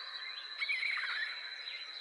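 Outdoor nature ambience: a steady high insect drone, with a bird's short warbling call and a few falling whistles about half a second in.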